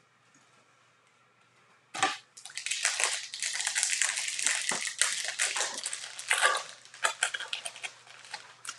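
Foil wrapper of a baseball card pack being torn open and crumpled. A sharp rip comes about two seconds in, then several seconds of dense crinkling that thins to lighter rustling near the end.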